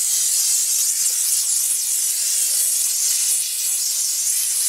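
Steam cleaner blasting a jet of steam onto a motorcycle wheel: a steady, high hiss that loosens the grime in the wheel's nooks and crannies.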